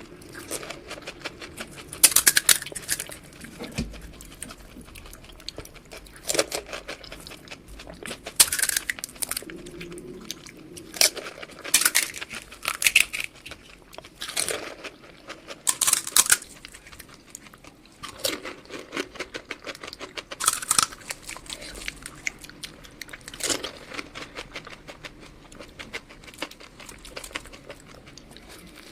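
Eating sounds of junk food: a person biting and chewing, with sharp crunchy crackles coming in irregular bursts every second or two between quieter chewing.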